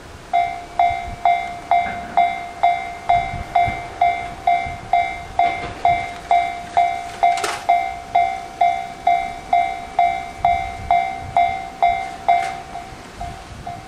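Railway level crossing warning bell ringing, a clanging tone struck about twice a second, which gets quieter near the end.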